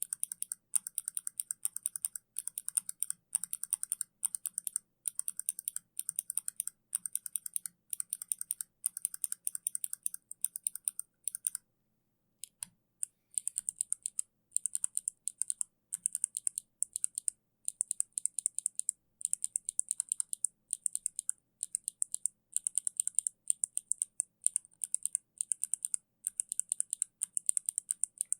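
Kailh mechanical keyboard switches being typed on in rapid, continuous keystrokes: a dense run of sharp key clicks and clacks, with a brief pause about twelve seconds in.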